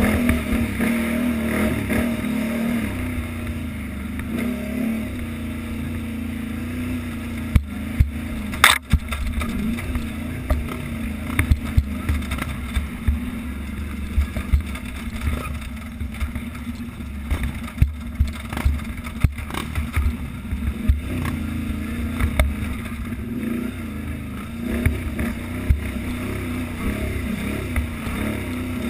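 Utility ATV engine running hard under varying throttle on a rough trail, its pitch rising and falling. Frequent sharp knocks as the quad jolts over bumps.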